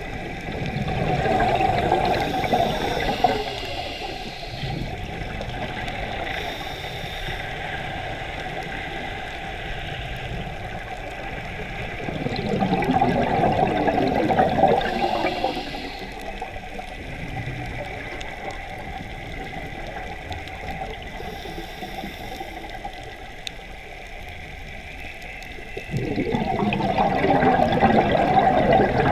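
Scuba diver's exhaled air bubbling out of the regulator, heard through an underwater camera. Three gurgling surges lasting a few seconds each come about every twelve to fourteen seconds, with a duller steady wash of water noise between them.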